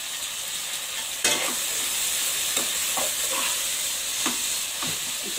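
Prawn masala sizzling in a pot while a metal slotted spatula stirs it. There is a knock about a second in, then several short scraping strokes against the pot.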